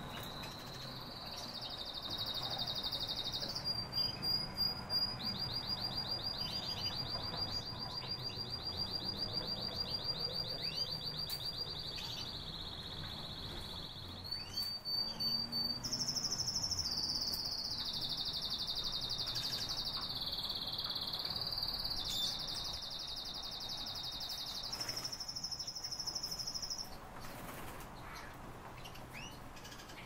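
Common starling singing: one long, unbroken run of high rattling trills, buzzy phrases and whistles that stops a few seconds before the end.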